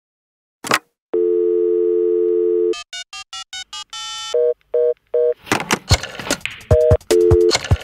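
Electronic telephone-style tones: a click, then a steady dial-tone-like tone for about a second and a half, a quick run of short beeps and three short two-note bleeps. About five and a half seconds in, these give way to a rhythmic beat of sharp percussive hits with more phone bleeps mixed in.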